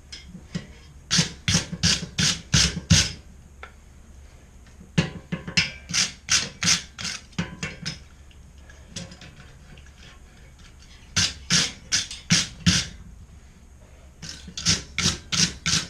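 Wire brush scrubbing a forged steel S-hook in quick back-and-forth strokes, about four a second, in four runs separated by short pauses.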